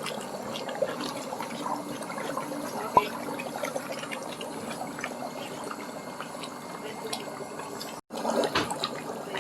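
Electric foot spa massager running with water in its basin: steady bubbling and churning of water over a low motor hum, with one sharp click about three seconds in.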